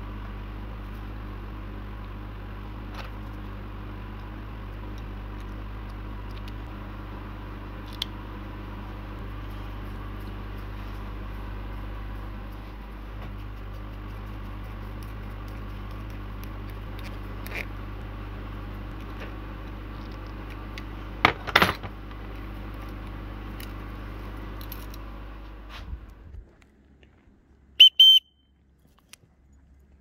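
Steady low hum with small clicks as the wooden whistle's parts are handled, a brief louder clatter about two-thirds through, then near the end two short, high blasts on a turned masur birch dog whistle.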